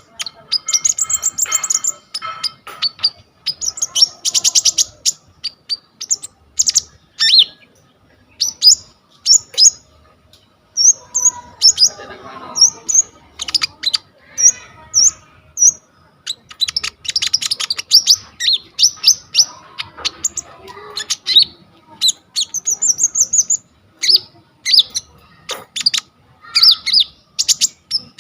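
Konin songbird singing continuously in a loud, varied song full of borrowed phrases (isian): rapid high trills, quick chirps and short whistled notes, with brief pauses between phrases.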